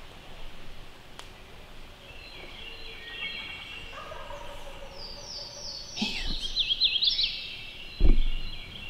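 Wild turkey gobbling several times, each gobble a rapid falling rattle, loudest about six seconds in. A sharp loud thump follows near the end.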